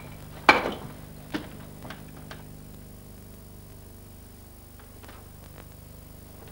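Soft background stage music with steady sustained keyboard-like tones. About half a second in there is one loud sudden clatter, followed by a few fainter clicks over the next two seconds.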